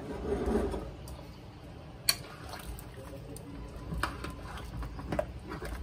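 A metal spoon stirring and scraping through a pot of boiling pelau, with wet sloshing of the thick liquid and sharp clinks of the spoon against the metal pot, the loudest about two seconds in. The cook is working the rice off the bottom of the pot, where it is sticking.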